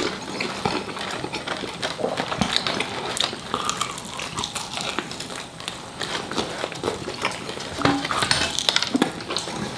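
A person biting into and chewing chicken wings close to the microphone: a dense run of small crunches and mouth clicks.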